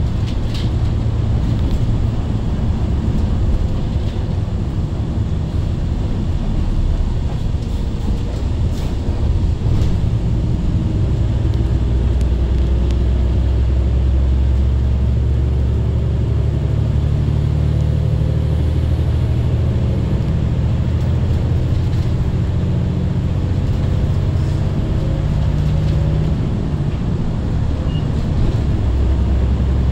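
Daewoo BS106 diesel city bus driving at road speed, heard from inside the cabin near the front: a steady low engine drone mixed with tyre and road noise. The engine note rises and falls gently as the bus speeds up and eases off.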